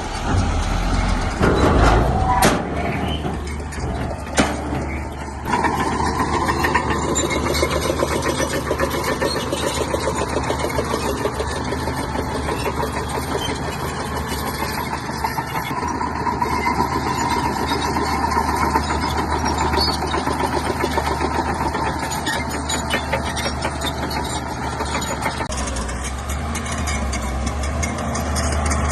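Bulldozer's heavy diesel engine running steadily under load, with a louder burst and two sharp metallic knocks in the first few seconds.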